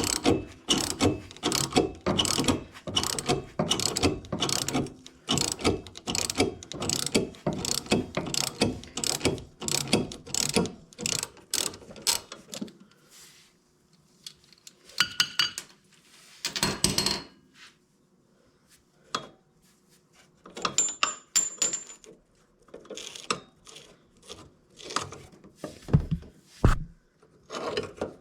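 Hand ratchet wrench clicking as a bolt is worked, in a long fast run of strokes for the first dozen seconds, then in short bursts with pauses. Two dull knocks near the end.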